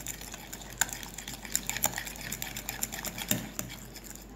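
Metal fork stirring a wet mashed-banana and sugar mix in a cut-glass bowl, with quick irregular clicks and scrapes of the fork against the glass.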